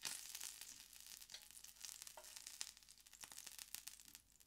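Faint sizzling of A5 Japanese wagyu beef searing on a hot plate, with many small crackles.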